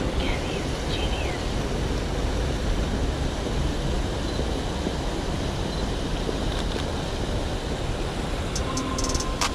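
Steady wind rumble on the microphone, with two short bird chirps about half a second and a second in. Near the end comes a quick run of sharp clicks.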